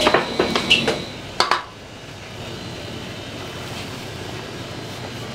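Several sharp clanks of metal bakeware, some briefly ringing, in the first second and a half, then a steady background rumble.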